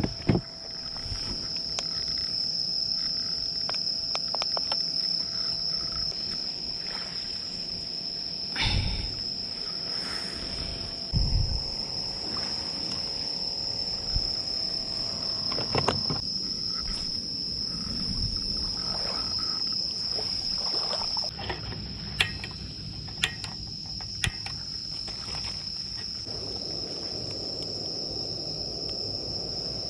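Insects chirring in one steady high-pitched tone, with occasional knocks and clicks from nearby handling.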